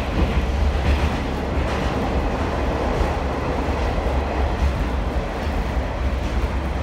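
Running noise of a subway train heard from inside the carriage: a steady low rumble under an even rushing hiss.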